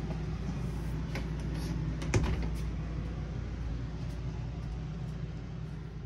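A steady low hum with a few light clicks over it, the loudest about two seconds in.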